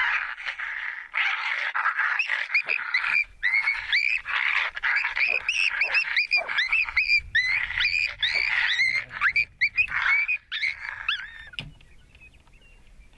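A group of coyotes yipping and howling together, many high wavering yips and short howls overlapping in a chorus that breaks off near the end.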